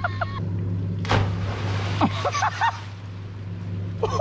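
Steady low machine hum, with a couple of short shouts and a brief rush of noise about a second in.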